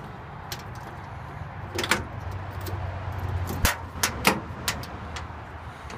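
A 1972 Ford F-100's door lock and handle being worked by hand: a string of sharp metallic clicks and clunks, with a low hum in the middle that cuts off with a hard clack about three and a half seconds in.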